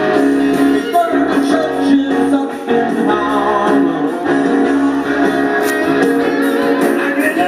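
Live rock band playing an instrumental passage between sung verses, with held chords over a steady drum beat.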